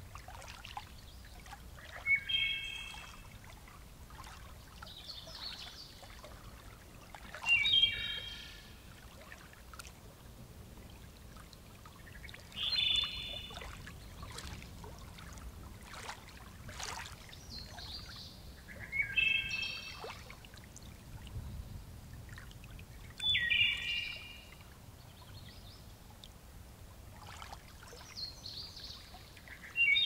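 A songbird repeating a short phrase of stepped whistled notes about every five seconds, with fainter, higher bird calls in between. Under it, steady trickling and dripping water.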